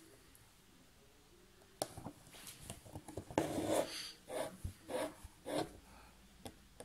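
Doubled embroidery thread being drawn through fabric stretched in an embroidery hoop as satin-fill lines are stitched: a run of short scratchy pulls, about two a second, starting about two seconds in.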